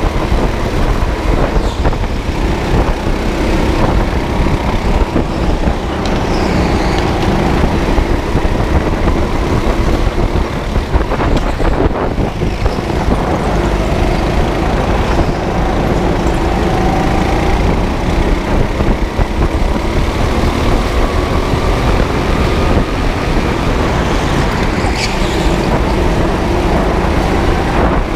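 Onboard sound of a go-kart lapping an indoor track: a steady heavy rumble of vibration and wind on the camera, with a faint motor whine rising and falling as the kart speeds up and slows for corners.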